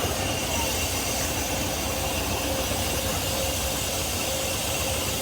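Train locomotive running steadily while standing, a continuous low rumble with a faint steady tone over it.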